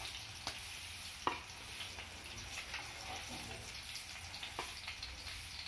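Halved boiled eggs sizzling in hot oil in a frying pan, with a few sharp clicks of a steel spoon against the pan as the eggs are lifted out.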